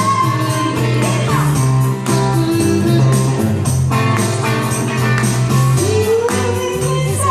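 Music track with singing over guitar, a steady beat and bass.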